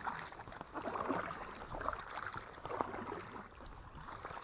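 Faint, irregular lapping and small splashes of lake water against an inflatable kayak.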